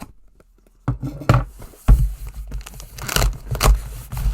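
Shipping package being torn and pulled open by hand: a run of ripping and scraping sounds with heavy knocks of handling, starting suddenly about a second in.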